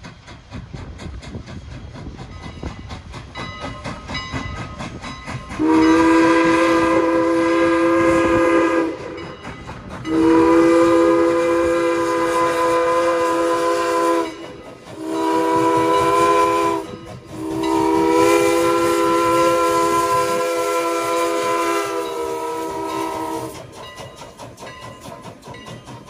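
Steam locomotive CN #89's whistle sounding a chord of several notes in four blasts, long, long, short, long: the standard grade-crossing signal. The train runs faintly underneath.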